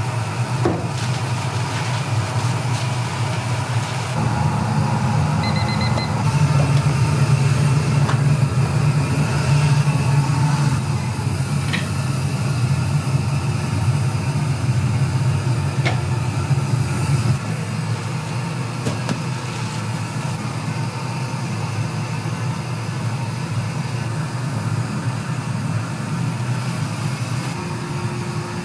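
Steady low hum of kitchen machinery, louder for the first half and then dropping back. A short electronic beep about five seconds in and a few light clicks and knocks of handling.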